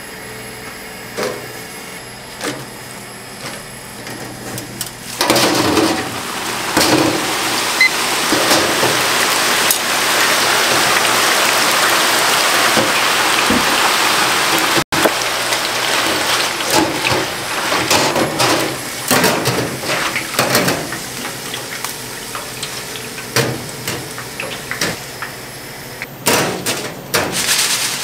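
Corn tortilla wedges deep-frying in a commercial fryer. About five seconds in, the oil bursts into a loud, dense sizzle. Past the middle it thins into crackling and pops, mixed with clicks and clanks of the wire fry basket and tongs.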